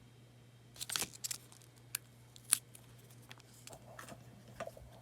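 Paper craft pieces being handled and shifted on a work table: a scattered series of short, crisp paper rustles and clicks, the sharpest about two and a half seconds in.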